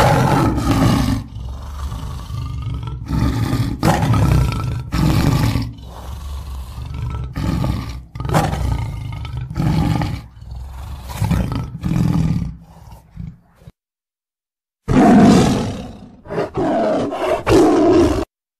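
Tiger roaring and growling in a long run of repeated deep bursts, then, after a pause of about a second, a second shorter run of roars.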